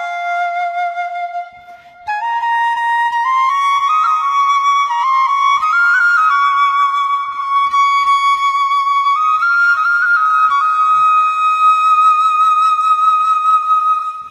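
Bamboo flute playing a slow solo melody: a held low note, a short break about two seconds in, then a phrase climbing step by step and a long held high note toward the end.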